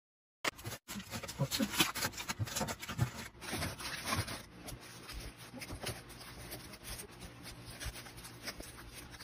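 Candy packets and plastic containers being handled: wrappers crinkle and plastic clicks and knocks in a dense run of sharp crackles, starting suddenly about half a second in.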